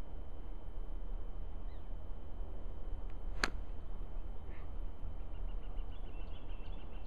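A golf wedge strikes a ball off the snow once, a single sharp click about halfway through, over a steady low rumble.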